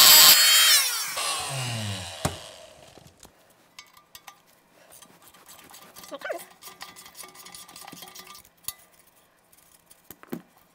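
Oscillating multi-tool fitted with a short cut-down wrench, vibrating a rusted nut on a turbocharger wastegate stud, switched off just after the start and winding down with a falling whine over a second or two. A sharp click follows, then faint metal clinks and taps as the loosened nut and plate are handled.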